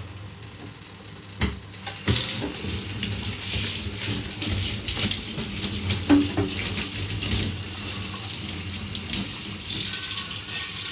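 Kitchen tap running into a sink, water splashing steadily, starting about two seconds in just after a sharp knock.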